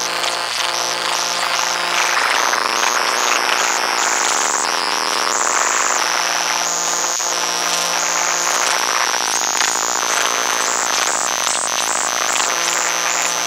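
Electromagnetic noise of four hard-drive spindle motors, picked up by induction coils and driven by control voltage through circuit-bent motor controllers. It forms a harsh, dense wall of noise: a high whine jumps between pitches in quick steps over a low hum, with a single sharp click about seven seconds in.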